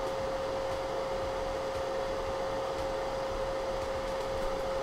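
Desktop computer's cooling fans running steadily: an even whoosh of air with a steady single-note whine.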